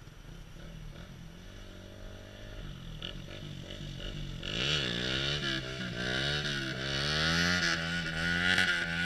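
Dirt bike engine idling, then revved up and down in quick repeated blips from about halfway through, getting louder.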